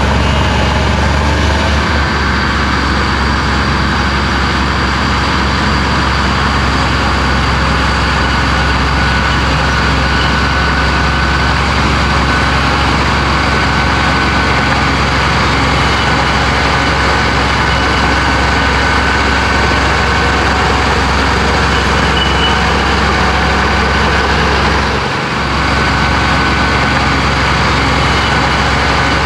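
Komatsu bulldozer's diesel engine running at a steady, heavy hum, with a faint high whine over it; the sound dips briefly near the end.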